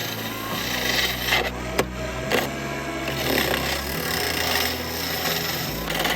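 Wood lathe spinning a piece of juniper while a turning tool cuts it: a continuous scraping rasp over the steady hum of the lathe motor, with a couple of sharp clicks about two seconds in.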